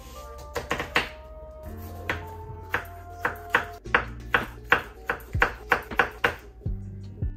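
A kitchen knife cutting onion and red pepper on a wooden chopping board: a run of sharp knocks, about three a second, over soft background music.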